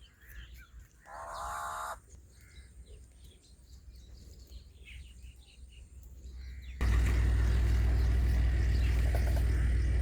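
Small birds chirping faintly, with one harsh crow-like call about a second in. About seven seconds in, a loud, steady low-pitched noise with a hum starts abruptly and covers everything else.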